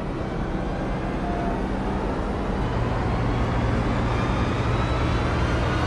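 Light aircraft's engine and propeller running steadily in flight, heard from inside the cabin as a constant noisy drone. A steady low hum in it grows stronger about two and a half seconds in.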